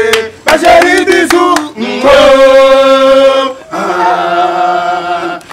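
A voice chanting: a short run of quick chanted words, then two long held notes, the second lower than the first.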